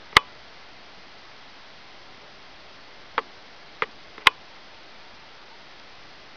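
Steady hiss of a compact stills camera's built-in microphone, broken by four sharp clicks: one just after the start and three close together between about three and four and a half seconds in.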